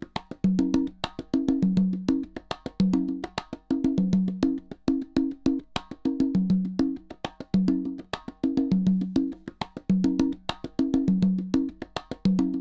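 Percussion music test signal: sharp wooden clicks over short, low pitched notes in a steady repeating rhythm, played at equal level and in phase from the left and right speakers for balancing their volume by ear.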